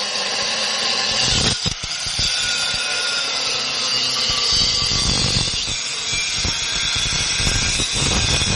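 Power tool cutting into the steel shell of a refrigerator compressor: a steady, loud grinding whine that eases off briefly under two seconds in, then bites again.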